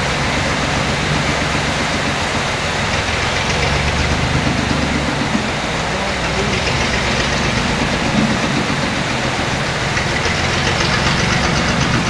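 Road roller's diesel engine running as the roller moves over fresh asphalt, coming closer near the end, over the steady hiss of heavy rain.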